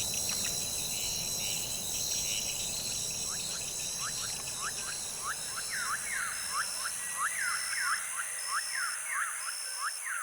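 Tropical forest ambience: a steady high insect chorus with one tone pulsing on and off about once a second. From about three seconds in, a rapid series of short rising animal calls comes in and grows denser and louder. A low background rumble falls away near the end.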